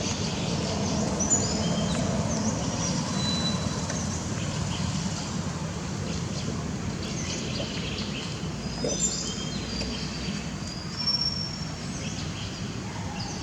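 Outdoor ambience: a steady low rumble with many short, high chirps scattered through it.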